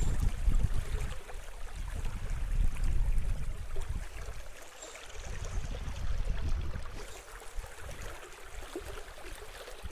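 Wind buffeting the microphone in uneven gusts, strongest in the first few seconds, over the steady rush of a wide, flowing river.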